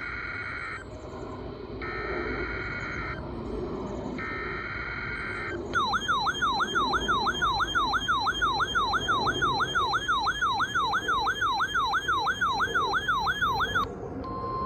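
Weekly-test alert signal on a 12-993 weather radio: the end of one burst of SAME data tones, then two more, each about a second and a half long. Then an alarm tone sweeps down from high to low over and over, about three times a second, for about eight seconds, set off by the header. Just before the end a steady 1050 Hz attention tone begins.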